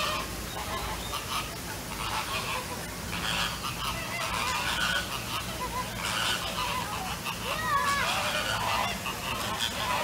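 Waterbirds honking: a few goose-like calls, each rising then falling in pitch, the clearest pair near the end, over a busy background of other bird calls.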